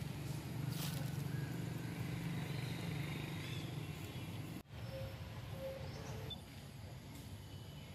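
A steady low hum over an outdoor background hiss, with two faint short tones a little past halfway. The sound drops out suddenly for an instant just before those tones.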